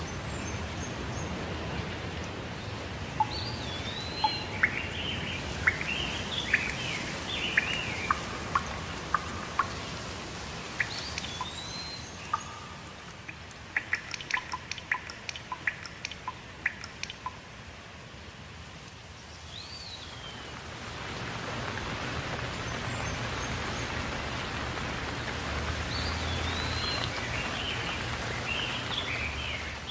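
Steady rain with birds calling over it in short, warbling phrases. In the middle the rain eases and a quick run of sharp ticks comes through, then the rain swells again about two-thirds of the way in.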